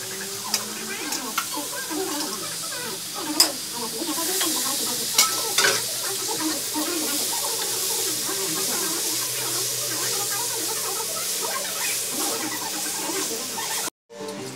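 Raw duck pieces sizzling in a hot stainless steel wok of sauce as they are stirred and turned with a spatula, with a steady frying hiss and occasional sharp clicks and scrapes of the spatula against the wok. The sound cuts out briefly near the end.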